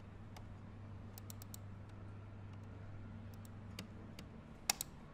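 Typing on a laptop keyboard: irregular, light key clicks, with two louder key presses close together near the end, over a low steady hum.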